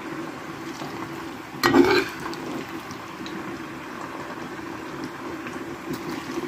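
Spatula scooping fried carrot, onion and tomato out of a frying pan over a steady sizzle from the pan and a pot of soup boiling, with one short, louder clatter about a second and a half in.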